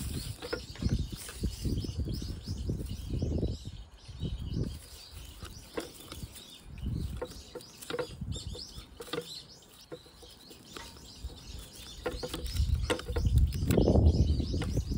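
Handling noise from hands working a small pine into a plastic pot: irregular rustles, clicks and soft low bumps, with a louder stretch of bumping near the end. Small birds chirp faintly in the background.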